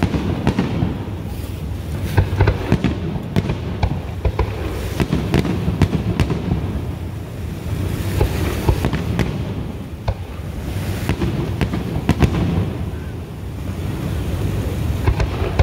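Aerial fireworks shells bursting in a professional display: a fast run of sharp bangs and crackles, easing into a quieter stretch about ten seconds in before picking up again.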